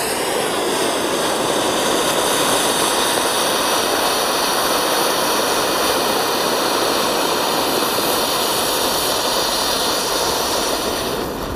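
Ground fountain firework (anar-type 'peacock' fountain) spraying sparks with a steady rushing hiss, easing off slightly near the end.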